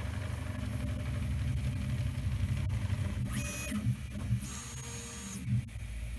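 Prusa i3 MK3 FDM 3D printer printing, its motors and fans running with a steady low hum. Twice, a little past halfway, a brief higher-pitched whine rises over it as the print head moves.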